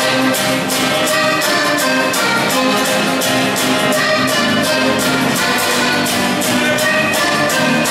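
Live acoustic rock band playing with a steady beat: acoustic guitars, a string section, accordion and drums.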